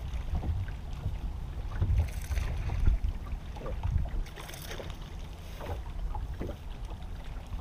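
Wind buffeting the microphone in a steady low rumble, with small waves lapping against the hull of a bass boat.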